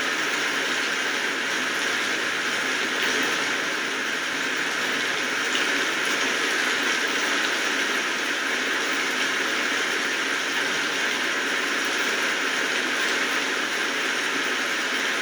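Steady rainfall: a dense, even hiss of raindrops with no breaks or changes.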